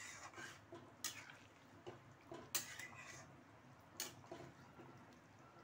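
A metal spoon stirring egg curry in a pot: light clinks and scrapes against the pot, with three sharper knocks about one, two and a half and four seconds in, over the faint sound of the liquid gravy moving.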